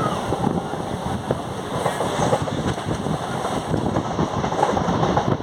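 Moving local passenger train running along the track: a steady clatter of wheels and carriage rattles, dense with short irregular knocks, with wind noise.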